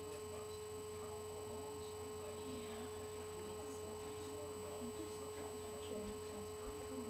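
Steady electrical hum with a constant high tone running through it, and faint movement noise.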